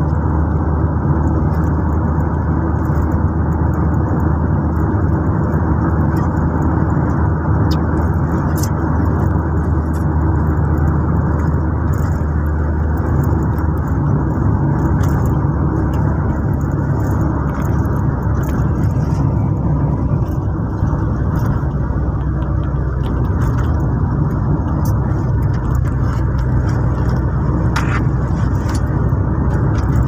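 A car driving at steady speed, heard from inside the cabin: a steady drone of engine and road noise.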